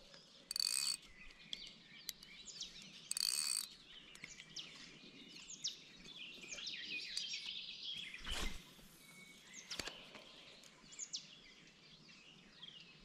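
Small songbirds chirping and calling over quiet outdoor ambience, with many short falling chirps. Two short hissing bursts come in the first few seconds and a brief thump about eight and a half seconds in.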